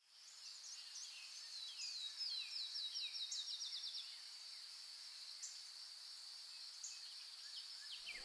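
Faint birdsong over a steady high-pitched whine: a run of quick falling whistled notes that come closer and closer together in the first half, then a few single short notes.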